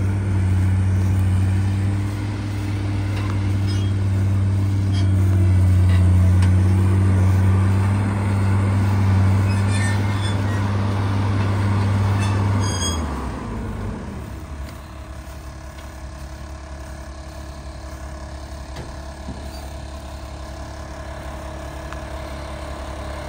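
A vehicle engine running steadily with a deep hum. It stops about 13 seconds in, leaving a quieter steady hum.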